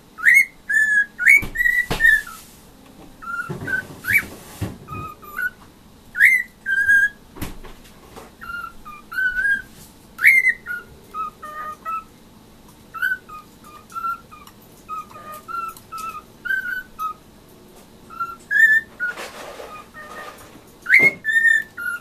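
Male cockatiel whistling a string of short rising and falling notes, mimicking the noises its owner makes to it. A few sharp clicks and two brief stretches of kitchen noise come between the notes.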